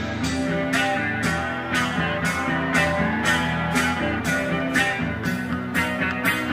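Rock music from a band: a steady drum beat of about two hits a second under a bass line and guitar.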